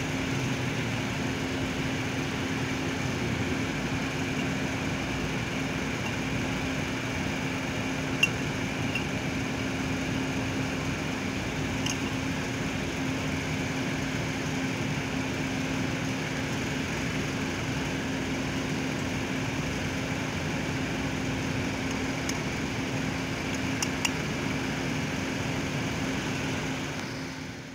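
Steady machine hum with a low drone, like a fan or motor running, and a few faint clicks.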